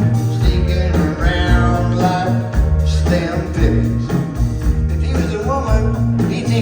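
Rock band playing live: full band music with a pulsing bass and drum beat.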